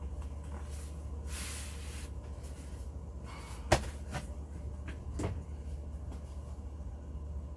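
Plastic toy parts and packaging being handled: a couple of rustles, then one sharp knock about halfway through followed by a few lighter clicks, over a steady low hum.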